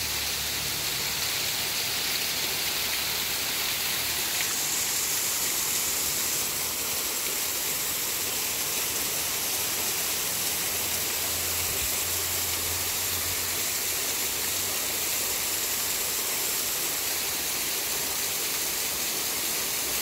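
Waterfall pouring into a shallow rock pool: a steady, unbroken rush of falling water.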